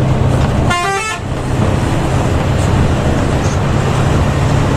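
Bus engine running with a steady low drone. About a second in, a vehicle horn sounds one short blast of about half a second.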